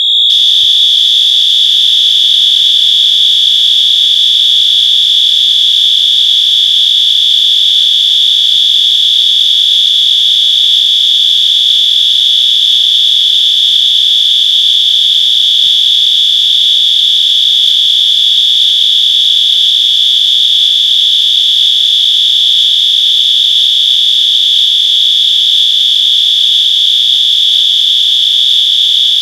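Fire alarm sounder set to high volume continuous, sounding one loud, steady, high-pitched tone without a break.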